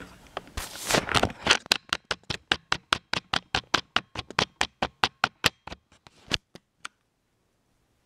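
A rapid series of sharp taps, about four or five a second, slowing and stopping near the end.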